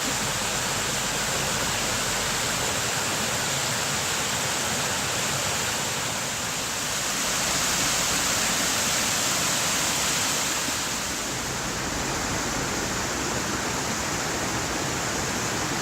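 Rushing river water, a steady whitewater wash recorded on a cell phone.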